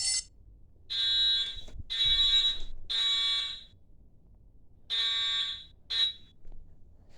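Fire alarm sounding in blasts of a high tone: a continuous sounding cuts off right at the start, then three blasts about a second apart, a pause, and two more, the last one short.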